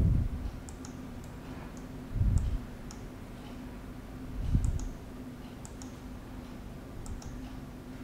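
Computer mouse clicking: scattered short clicks, several in quick pairs, over a steady low hum. Three dull low thumps come about two seconds apart in the first half.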